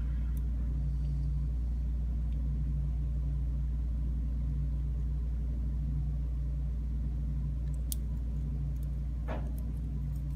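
Steady low hum, with a few faint light clicks near the end as small lock parts are handled.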